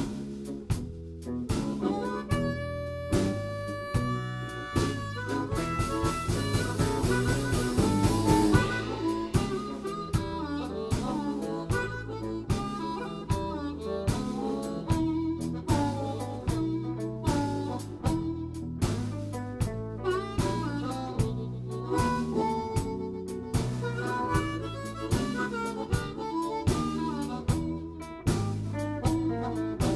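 Live blues band with harmonica played into a vocal microphone leading an instrumental passage over electric guitar, bass and drums, with no singing. About two seconds in the harmonica holds a long note for a few seconds. A few seconds later a cymbal wash builds to the loudest moment.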